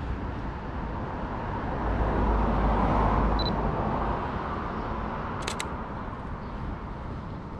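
The shutter of a Canon EOS M50 mirrorless camera firing once about two thirds of the way in, a crisp double click. Just before it comes a short high beep, typical of the camera's focus-confirmation beep. Under both runs a steady traffic rumble that swells as a vehicle passes, about a third of the way in.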